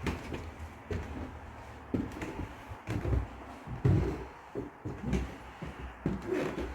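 Footsteps thudding on old wooden boards, an uneven run of dull knocks about one or two a second.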